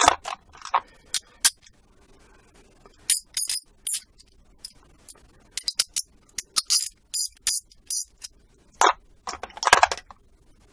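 Chrome steel sockets clinking and snapping on and off a 3/8-inch ratchet as they are taken from and put back into a plastic case: scattered sharp metallic clicks and clinks, with a denser run of clicks a little before the end.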